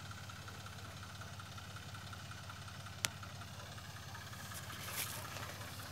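Tractor engine running steadily with a low hum while powering a crop sprayer. There is one sharp click about three seconds in.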